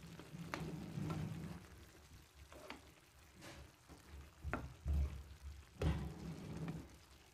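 Wooden spatula stirring cubed sweet potato and onion in a nonstick frying pan, with soft scrapes and a few light knocks against the pan. The loudest knocks come about five and six seconds in.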